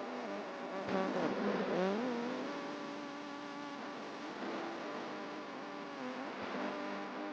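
A man's voice chanting Quran recitation, drawing out long held notes. A winding melodic turn comes about a second in, then the notes settle into a steady drawn-out tone.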